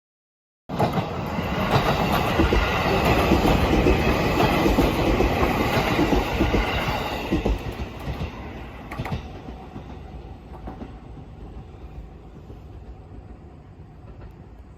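A train passing by, its wheels clacking over the rails: it starts abruptly just under a second in, stays loud for about six seconds, then fades away as it moves off.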